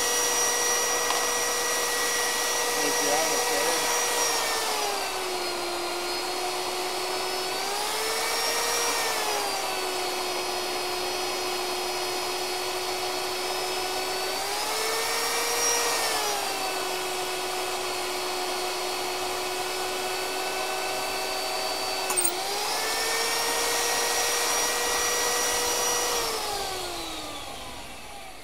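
Electric drill boring a hole through a steel truck frame rail: a steady motor whine that sags lower in pitch three times as the cutter bites into the steel under load and rises back as it eases off. A sharp click comes about two-thirds through, and near the end the motor is switched off and winds down.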